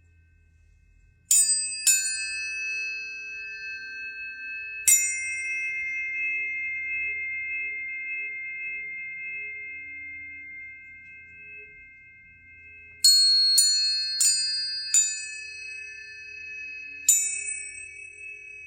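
Planetary tuning forks struck one after another, each strike a sharp metallic tap followed by a long, clear ringing tone at a few fixed pitches that overlap and slowly fade. Two strikes come about a second in, another about five seconds in, then a quick run of four around thirteen to fifteen seconds and a last one near the end.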